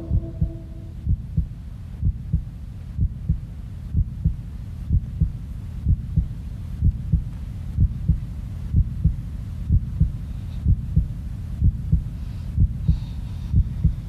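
Heartbeat sound effect: paired deep lub-dub thumps about once a second over a steady low hum.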